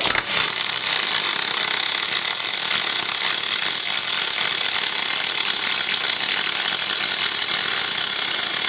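MIG welding arc of an R-Tech MIG180 inverter welder with a spool gun, feeding 1 mm aluminium wire onto 4 mm aluminium plate at about 130 amps with the voltage turned up. It strikes right at the start and then runs as a steady, dense crackling hiss.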